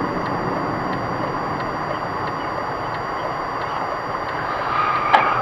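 Steady road and engine noise of a car driving, as picked up by a dashcam inside the car, with a single sharp click about five seconds in.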